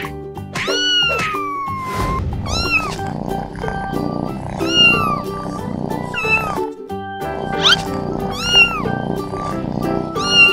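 Young kittens meowing, repeated high-pitched meows about once a second, one long falling meow near the start. Background music plays underneath.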